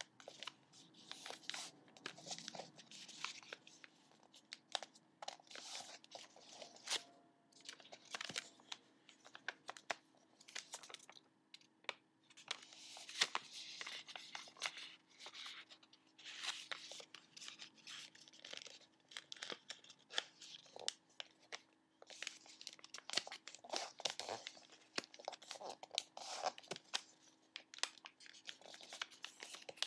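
A sheet of origami paper being folded and creased by hand: on-and-off crinkling and rustling, with many short clicks as the folds are pressed down.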